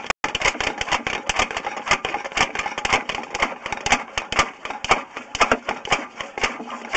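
Rapid, irregular clattering and knocking, several strikes a second, from a sewer inspection camera and its push cable being fed along the pipe.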